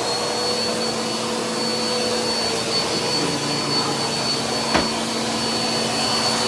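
Vacuum cleaner running steadily with a high, even whine over its motor noise. A single sharp knock comes about five seconds in.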